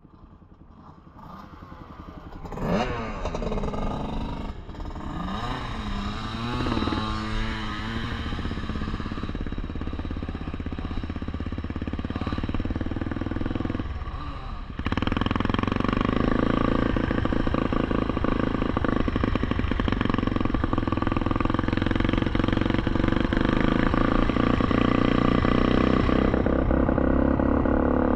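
Small off-road vehicle's engine heard from its handlebars as it is ridden, revving up and down through the first several seconds. After a brief drop about halfway through, it runs louder and steadier at an even riding speed.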